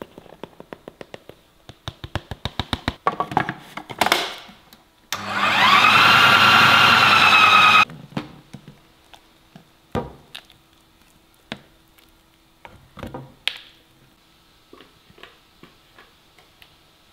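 Food processor motor spinning up with a rising whine and running about two and a half seconds, grinding ground meat with tapioca flour into meatball paste, then cutting off abruptly. Before it comes a quick run of light taps, and after it scattered knocks as the paste is scraped out of the plastic processor bowl.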